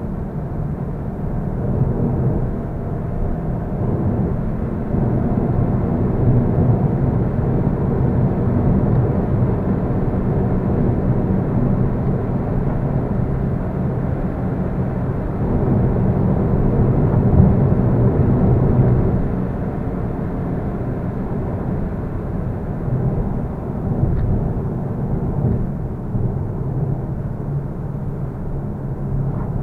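Steady low rumble of a car's engine and tyres at road speed, heard from inside the cabin, swelling a little partway through.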